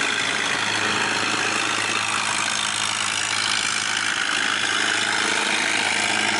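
Big car engine fitted to a Mekong Delta longtail boat (vỏ lãi), running hard with a steady, even drone as the boat speeds past.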